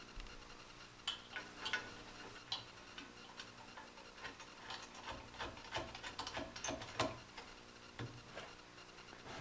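Light, irregular metallic clicks and taps of hand tools working on the motor mount and its fasteners, several a second at times, the loudest about seven seconds in.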